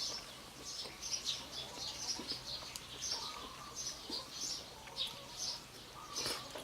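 Small birds chirping: short, high chirps repeating about once or twice a second.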